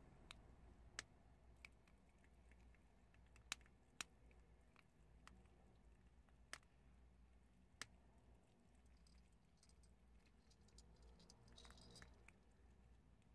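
Prairie dogs chewing hard chickpeas: sharp, irregular crunches every second or two over a quiet background, with a small run of fainter clicks near the end.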